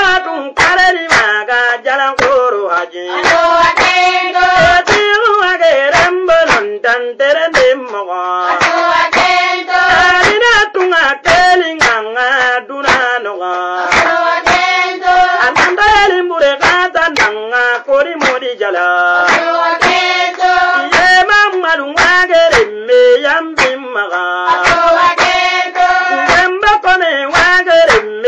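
Singing of a repetitive West African song, with sharp hand claps keeping a quick, even beat under the voices.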